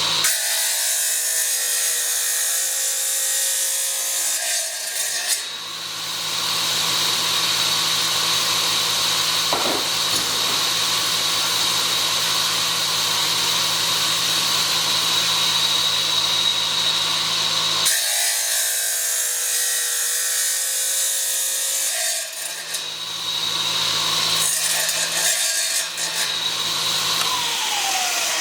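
Wet tile saw running and cutting ceramic subway tile, its sound changing twice as the blade works through the tile. Near the end the saw is switched off and its motor winds down in a falling whine.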